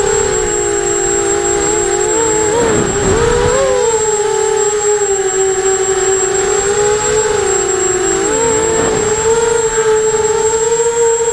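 Brushless motors and propellers of an Eachine 250 racing quadcopter running: a steady whine of several close tones that sag and swell together with throttle changes, once about a quarter of the way in and again about three-quarters through.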